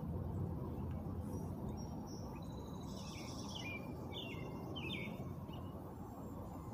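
Steady low outdoor background rumble, with a small bird chirping a quick run of short high notes for a few seconds in the middle.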